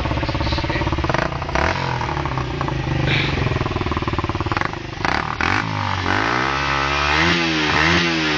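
A 125 cc supermoto motorcycle engine runs steadily, then from about halfway it is revved up and down in a series of quick throttle blips.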